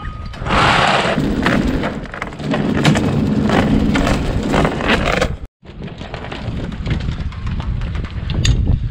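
Galvanised 10 mm anchor chain rattling and clanking as it is hauled along a concrete pontoon and aboard, with wind rumbling on the microphone. The clatter cuts off about five and a half seconds in, leaving wind noise and scattered clinks.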